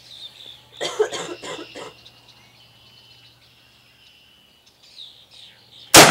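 A single loud, sudden M1 rifle shot near the end, with a long echoing tail, after several seconds of quiet.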